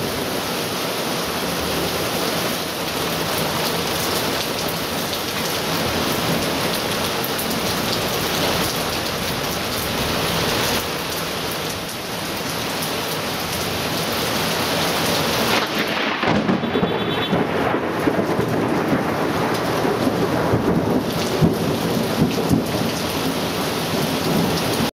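Torrential thunderstorm rain pouring down steadily, a flash-flood downpour. In the second half the sound turns rougher, with sharp spattering peaks over the steady rush.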